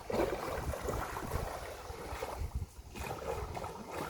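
Wind buffeting the microphone outdoors: an uneven low rumble with a faint hiss over it.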